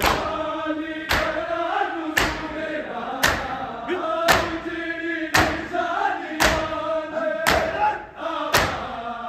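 A large group of men chanting a Shia mourning noha in unison while beating their chests (matam). The massed slap of open hands on bare chests lands together about once a second, in time with the chant.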